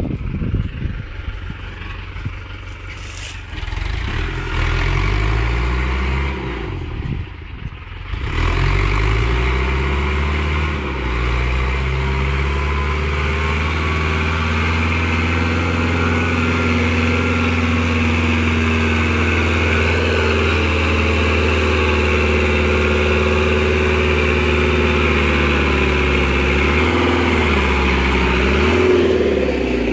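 Tractor engine revving up in steps and then held at high revs under load for a long stretch, before easing off and wavering near the end.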